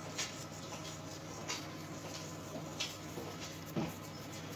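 Faint, light clicks and taps of kitchen handling, four of them about a second apart, over a steady low hum.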